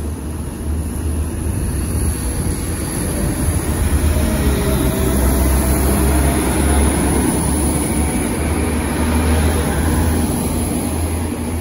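Northern Ireland Railways diesel multiple unit running past close by, a low engine rumble with wheel and rail noise. It grows louder over the first few seconds, is loudest in the middle as the cars go by, and eases off towards the end.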